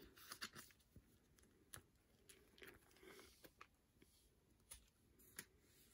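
Faint, scattered rustles and light taps of photo cards and clear plastic binder sleeves being handled, with a page of sleeves turned.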